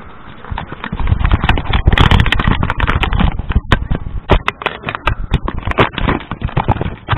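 Dense, irregular knocking and rattling with a rumble underneath: the bumping and handling noise of a low-mounted camera jolting as it moves along a street.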